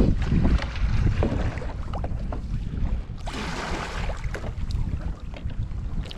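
Wind buffeting the camera microphone, with a low rumble and the slap of choppy sea against a kayak hull, and a few small knocks from the paddle and gear. A wave washes by with a hiss about three seconds in, lasting about a second.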